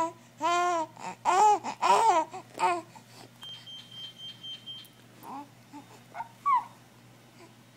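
A baby laughing in four short giggly bursts over the first three seconds, then a few small, quieter vocal sounds near the end.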